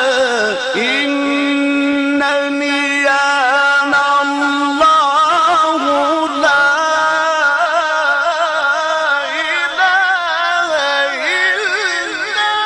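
A reciter's voice in melodic Quran recitation (tajweed), drawing out long sustained notes with ornamented turns in a maqam-style melody.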